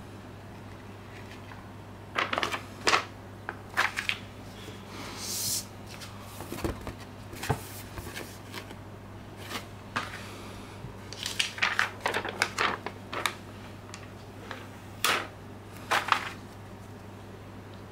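Gloved hands peeling stickers off a clear plastic sticker sheet and handling the sheet and a card: a scattered series of crinkles, rustles and light clicks, with a couple of soft knocks, over a steady low hum.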